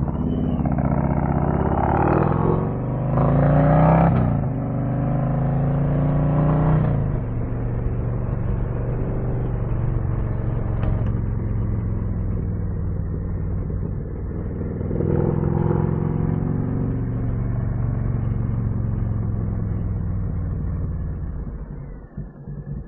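Harley-Davidson Street Glide ST V-twin running through a custom C3 Vtwin 2-into-1 exhaust with a titanium can, pulling away with two rising revs in the first few seconds. It then runs steadily, revs up again about fifteen seconds in, and eases off near the end.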